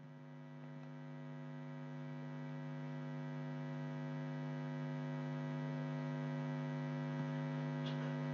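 Steady electrical hum in the recording, a buzz made of many evenly spaced tones, fading in at the start and growing slightly louder.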